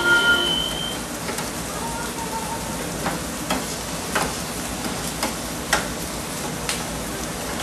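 Food sizzling and frying on a steel flat-top griddle. From about three seconds in, a utensil clicks and scrapes against the griddle several times as the steak cubes are turned.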